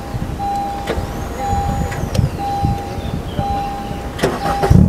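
Dashboard warning chime of a 2013 Honda CR-Z beeping about once a second with the key in the ignition; near the end the engine is started and catches loudly.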